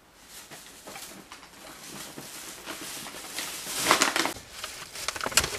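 Rustling and crinkling of things being handled close to the microphone, growing louder, with a few sharp clicks near the end.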